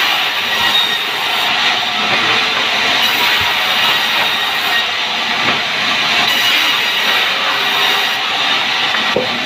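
Large sawmill band saw resawing a plank of pucung hardwood lengthwise: a steady, loud noise of the blade cutting through the wood, with faint high tones running through it.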